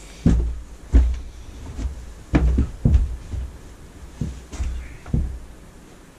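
Footsteps thudding on a carpeted shed floor, ending as a man sits down on a cushioned bench seat: a series of irregular low thuds over about five seconds.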